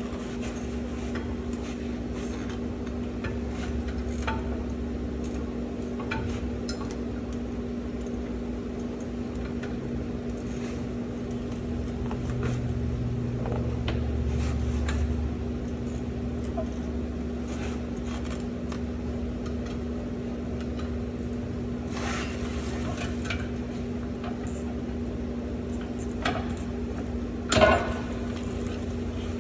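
Scattered metal clinks and knocks of hand tools and drum-brake parts being handled during a truck brake shoe job, over a steady hum. One louder clank comes near the end.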